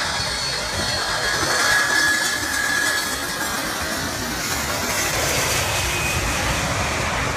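Jet engines of a Boeing 747 flying low overhead on final approach: a steady, loud roar with a thin whining tone through it for a moment.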